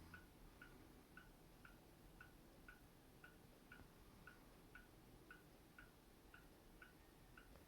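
A clock ticking faintly and evenly, about two ticks a second, in a near-silent room.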